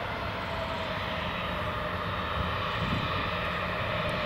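Boeing 737-800 jet engines running steadily: a broad rush with a faint whine over a low rumble.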